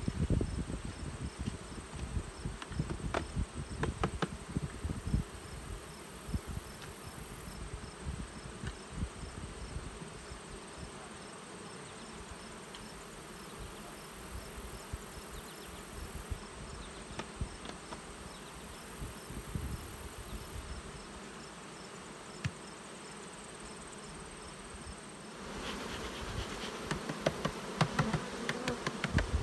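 Many honeybees buzzing in flight around opened hives, with a few knocks scattered through it. The buzzing grows louder about 25 seconds in.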